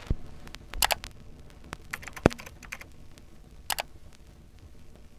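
Computer keyboard typing: several short clusters of sharp keystroke clicks, with lighter single ticks scattered between them.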